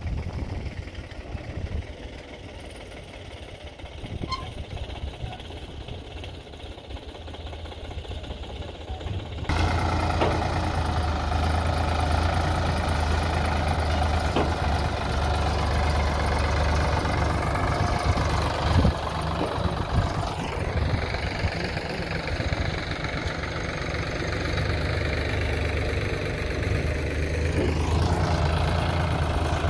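Diesel tractor engine running steadily. It is faint for the first ten seconds, then much louder after an abrupt jump, with a deep steady drone and a few knocks.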